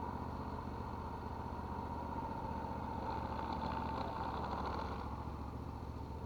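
Boat motor running steadily at low speed, a low hum with a steady high whine over it.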